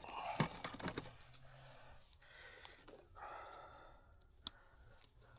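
A person breathing out heavily twice, like sighs, with light handling clicks early on and one sharp tick near the end.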